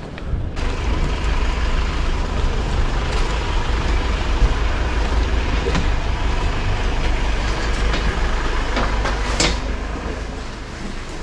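Steady rumble of a vehicle, easing off near the end, with a sharp click about nine seconds in.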